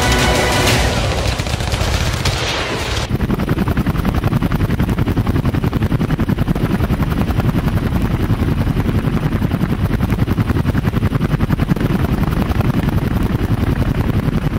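Rapid gunfire over music for the first few seconds, then the steady, rapid chop of helicopter rotors with an even beat.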